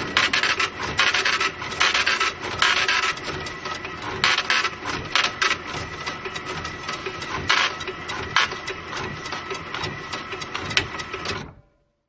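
Cash register sound effect played slowed down: a long run of dense mechanical clicking and rattling with a faint steady tone through it, stopping suddenly near the end.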